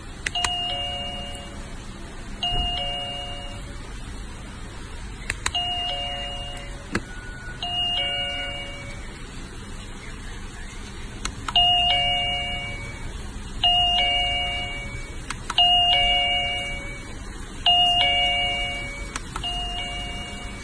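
Eurobell wireless doorbell receiver playing a two-note ding-dong chime, high note then low, repeated about every two seconds and loudest in the second half, with a few sharp clicks in between.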